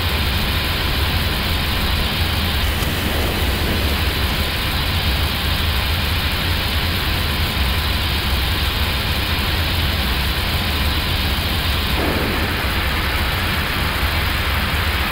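Steady rushing noise inside an Airbus A321neo cockpit during the climb at climb thrust: airflow over the nose and the engines' running, even and unbroken with a strong low rumble.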